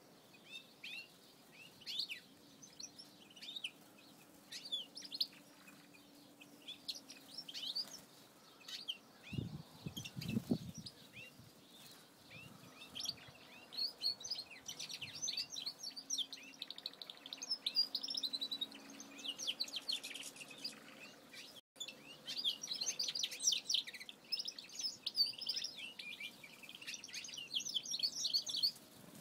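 A mixed flock of aviary finches chirping and twittering: many short, high calls all through, getting busier from about halfway and thickest near the end. A brief low rumble sounds about nine seconds in.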